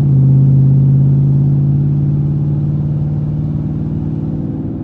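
Straight-piped 5.7 L Hemi V8 of a 2013 Chrysler 300C, with gutted cats and no resonators or mufflers, heard from inside the cabin as the car accelerates in gear. The exhaust holds one deep, steady note that is loudest at first and then slowly eases.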